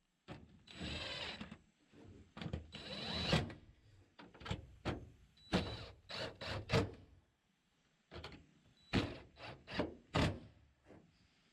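Irregular mechanical clicks and knocks, about a dozen spread out, with two short scraping rasps in the first few seconds.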